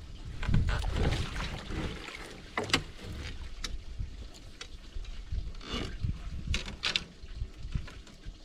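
Water splashing at the side of a boat, with a few sharp splashes about three seconds in and again around six to seven seconds, over a low wind rumble on the microphone.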